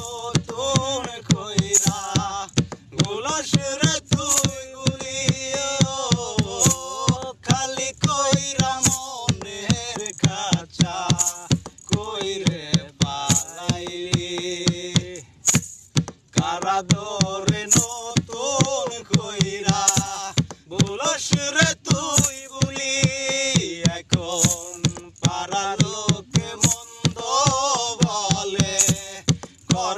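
Male voices singing a Bengali song, accompanied by a steady beat of hands slapping a plastic jerrican played as a drum.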